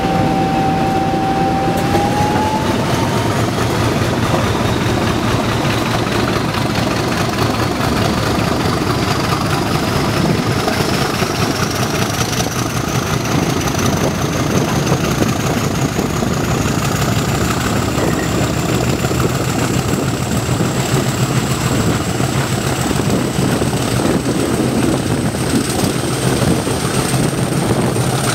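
Class 50 diesel-electric locomotive's English Electric 16-cylinder engine working hard as the train pulls away and gathers speed. A high whine rises steadily in pitch throughout.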